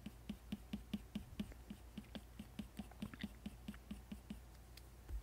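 Apple Pencil tip tapping and stroking quickly on an iPad Pro screen fitted with a matte protector, faint ticks about four to five a second that stop about four and a half seconds in, with a soft low bump near the end.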